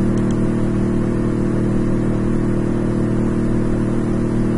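Steady low electrical hum of several even tones, the background noise of the recording, with a couple of faint mouse clicks just after the start.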